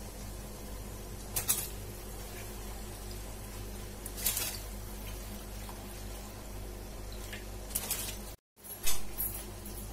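Handfuls of soaked basmati rice dropped into a pot of hot spiced water, each landing as a short splash, four in all, over a steady low hiss.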